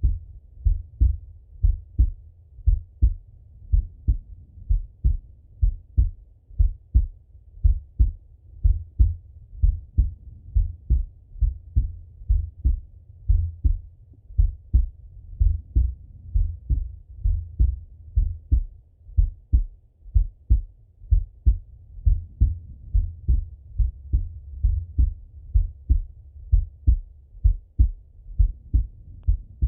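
A man's heartbeat heard through a Littmann stethoscope on the chest: low thumps in a steady, even rhythm.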